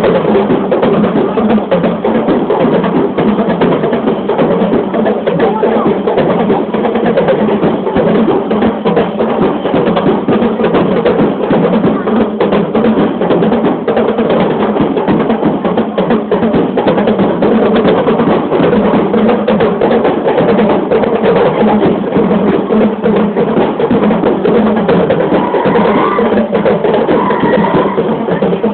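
Loud, busy percussion music driven by drums and sharp wood-block-like beats, playing without a break for a street dance.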